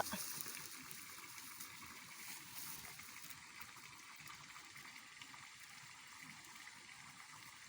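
Faint, steady trickle of water in a flooded rice paddy.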